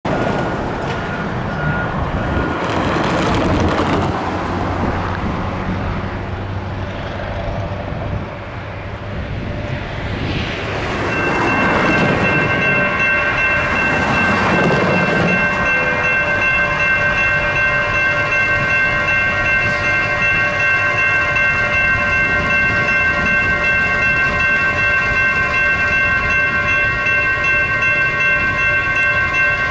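Road traffic passing a railroad crossing; about eleven seconds in, the crossing's electronic warning bells (Safetran and NEG E-Bells) start ringing and keep ringing as the signals activate for an approaching train.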